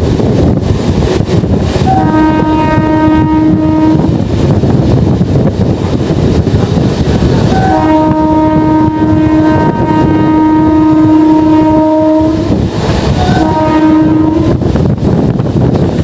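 Train horn blown three times: a blast of about two seconds, then a long one of about five seconds, then a short one, each opening with a brief higher note. Underneath runs the steady running noise of the moving MEMU train with wind on the microphone.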